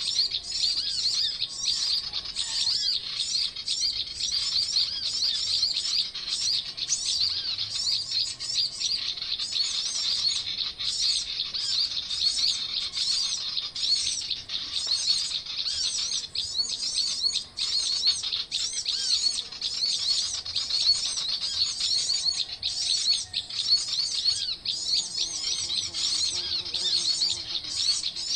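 Many small birds chirping without pause: a dense chatter of short, high, arched notes repeated rapidly over one another.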